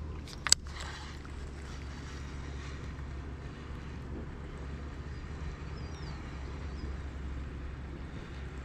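A sharp click about half a second in from the baitcasting reel as it is handled after the cast, over a steady low hum.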